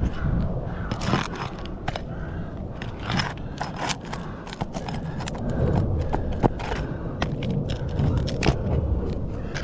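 Asphalt roof shingles being scraped and pried at: irregular scrapes, crackles and sharp clicks.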